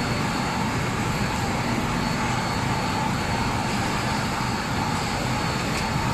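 Steady machinery drone with an even rushing noise of moving air, with a faint click about six seconds in.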